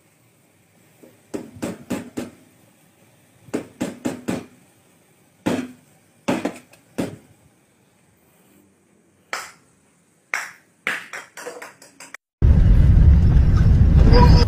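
An egg is knocked again and again, in quick groups of two or three sharp knocks, first against a pan and then on a hard floor, without cracking. About 12 seconds in, a loud, steady rushing noise starts suddenly.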